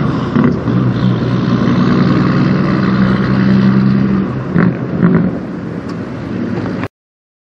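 Diesel engine of a red Peterbilt semi tractor pulling a loaded trailer away, running steadily and then fading as the truck drives off; the sound cuts off abruptly about a second before the end.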